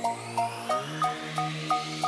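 Electronic intro theme music: a short plucked synth note repeating about three times a second over a held bass, with a sweep rising steadily in pitch as it builds. The bass moves to a higher note a little under a second in.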